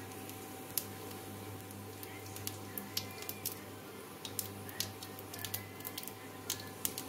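Cumin seeds crackling as they fry in hot oil for a tadka: scattered sharp pops, sparse at first and coming a few a second after about two seconds. A steady low hum sits underneath.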